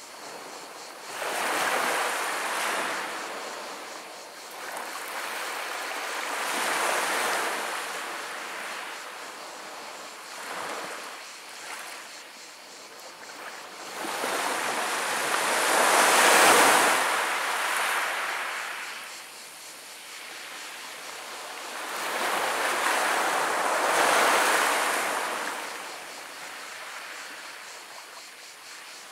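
Small Mediterranean waves breaking and washing up a pebble beach, the sea rolling over the pebbles. Four swells of surf come and go, the loudest about halfway through.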